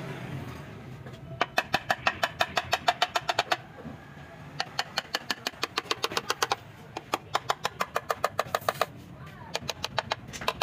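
Rapid metallic tapping, about nine sharp ringing strikes a second, in four runs of one to two seconds each with short pauses between.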